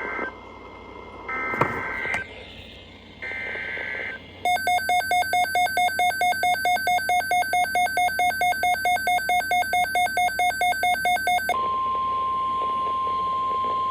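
NOAA Weather Radio emergency alert tones. Three short warbling SAME data bursts of the alert header come first, then a pulsing electronic alarm beeps about four times a second for about seven seconds. About eleven and a half seconds in, a steady 1050 Hz weather alert tone starts and holds.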